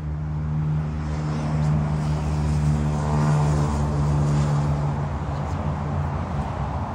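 A vehicle passing by: its noise swells to a peak about three seconds in and then fades, over a steady low hum.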